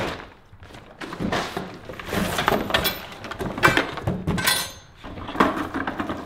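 Clatter of a push lawn sweeper being lifted out of its cardboard box and handled: irregular knocks, clinks and rustling of packaging, with a quick rattle of clicks about four and a half seconds in.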